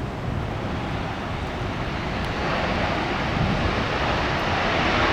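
Jet airliner landing on a wet runway, its engine noise swelling from about two seconds in as the thrust reversers spool up.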